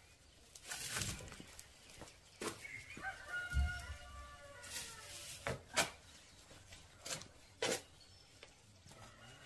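A rooster crowing once, about three seconds in, a call of about a second and a half. Scattered sharp knocks and clicks come through, the loudest near the middle and about two seconds later.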